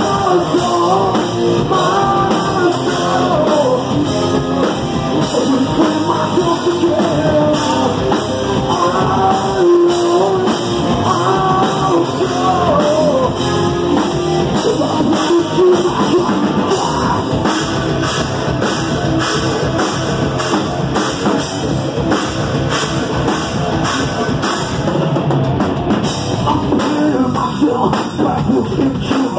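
Hard-rock band playing live and loud: a drum kit and guitars, with a man singing into a microphone over them.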